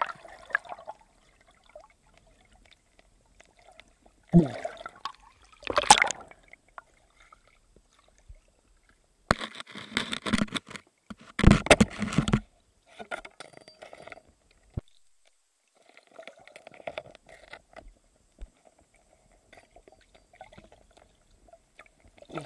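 Water sloshing and gurgling around a camera held underwater while spearfishing. It comes in separate bursts a few seconds apart, with quiet stretches between.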